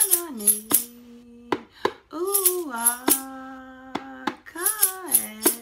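A woman chanting solo in long held notes, each sliding down in pitch onto a low sustained tone, with sharp, irregular shakes of a hand rattle over and between the notes.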